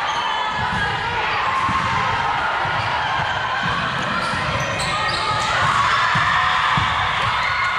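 Indoor volleyball rally: the ball being struck and players' footsteps thudding on a hardwood gym floor, over a murmur of players' and spectators' voices echoing in the large hall.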